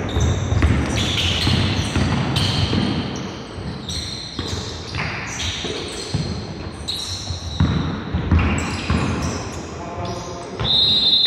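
Basketball game on a hardwood gym floor: the ball bouncing, players' feet thudding as they run, and sneakers squeaking in short high chirps, echoing in a large hall.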